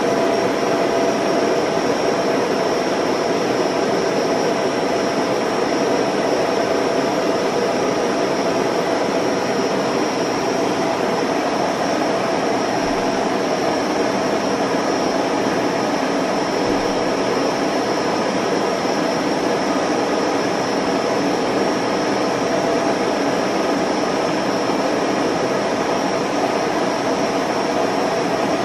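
Steady mechanical whir of a film projector running: an even hiss with a constant hum that does not change, carrying none of the show's own sounds.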